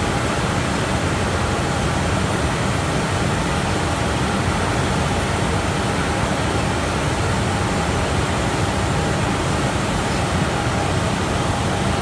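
A mesh-type veneer dryer running: a steady, even noise of its circulating fans and conveyor drive, with a faint steady tone.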